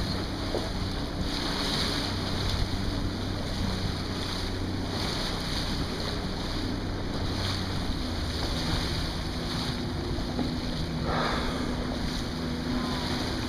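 Wind gusting on the microphone over choppy sea, with the low steady hum of a boat's engine. About eleven seconds in, a short breathy whoosh as a humpback whale blows at the surface.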